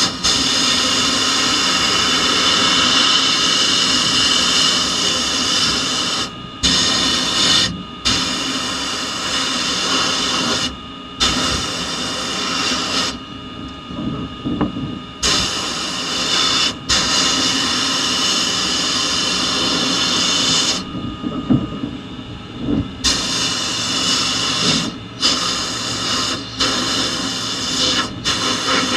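Sandblasting in a blast cabinet: the blast gun hisses loudly with compressed air and abrasive as it strips paint from a Tonka toy's steel parts. It runs in long bursts broken by many short pauses, two of them about two seconds long, as the trigger is released.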